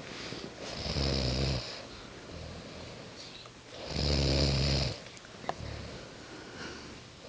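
Two sleeping people snoring. There are two loud snores, about a second in and again about four seconds in, with fainter snoring breaths between.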